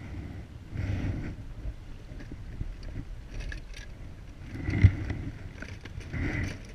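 Gusting wind buffeting the microphone on an inflatable raft, rising and falling in swells, with small clicks and rustles of handling and one sharp knock a little under five seconds in.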